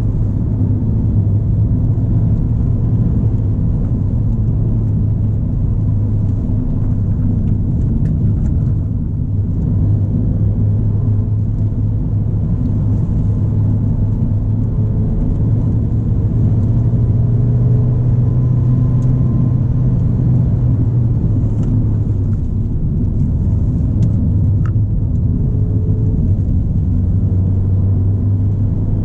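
Ford Fiesta ST being driven at a gentle pace: a steady engine and road drone, with the engine note drifting up and down a little with speed.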